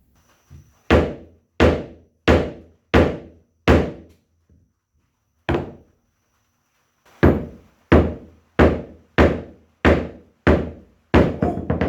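A hammer striking a nail into wood in steady blows: a run of five, a single blow after a pause, then a run of about seven more.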